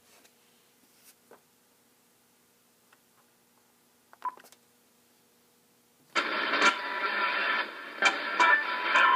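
Icom IC-7000 transceiver tuning shortwave: faint hum and a few soft clicks, a short beep about four seconds in, then a station's audio comes in suddenly and loud, carrying music.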